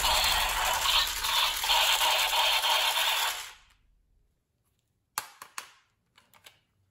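A loud, dense sound dies away about three and a half seconds in. After a short silence come a few sharp plastic clicks from a toy bead gun, three close together and then two or three fainter ones.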